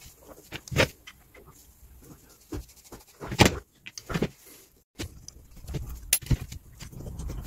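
Bench-work clatter: scattered metallic clicks and knocks as an engine rear-seal plate, pliers and small loose parts are handled and set down on a workbench, the loudest knock about three and a half seconds in.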